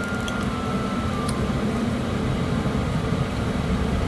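Steady low hum with an even hiss over it, unchanging throughout: machine-like background noise.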